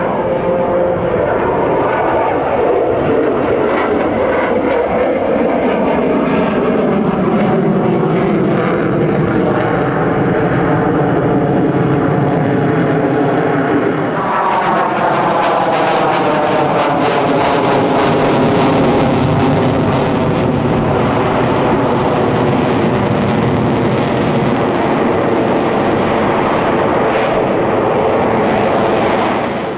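Jet noise from an F-22 Raptor's twin Pratt & Whitney F119 afterburning turbofans as the fighter passes overhead, with slowly sweeping pitch bands. About halfway through the sound shifts and turns harsher and crackling.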